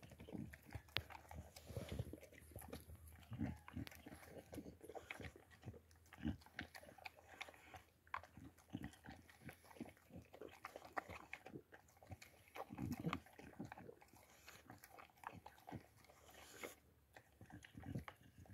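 Boxer dog eating from a stainless steel bowl: faint, irregular chewing and crunching, with sharp clicks of food and teeth against the bowl.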